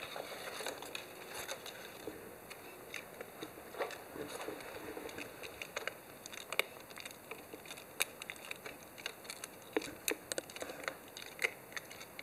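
Sheltie puppy chewing and mouthing a white strip held in its teeth: irregular faint clicks and crinkles.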